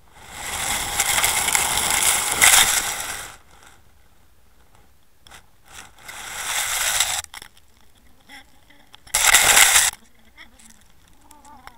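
Underwater camera and lead weight scraping and grinding over a shingle-and-shell seabed, in three bursts: a long one, a shorter one midway, and a brief loud one near the end.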